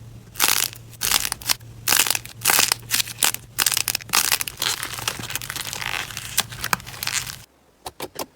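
Slime being squeezed and pressed by hand, giving dense, irregular crackling crunches over a faint low hum. The sound cuts off about 7.5 seconds in, and a few single sharp clicks follow.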